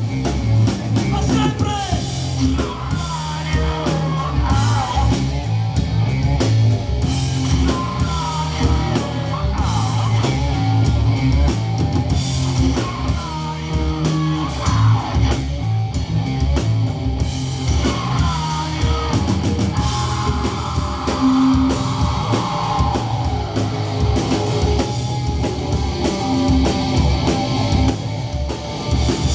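Live rock band playing: distorted electric guitars, bass guitar and a drum kit at a steady loud level, with a wavering lead line over the top.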